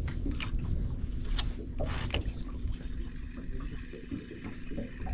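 Water slapping around a small fishing boat, with an uneven low rumble, a faint steady hum and several sharp clicks or knocks in the first two and a half seconds.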